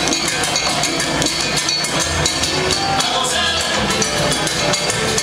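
Music with drums and percussion keeping a steady beat.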